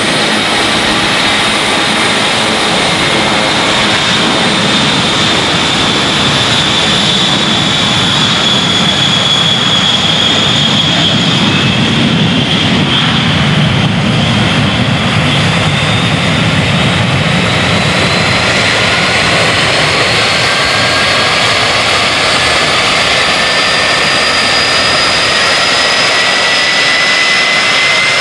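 Boeing VC-137C (707) with four Pratt & Whitney TF33 (JT3D) turbofans at takeoff power, rolling, lifting off and climbing away: a loud, steady jet roar with a high whine that sinks slightly in pitch and then climbs in the second half. A deeper rumble is strongest around the middle, as the jet lifts off.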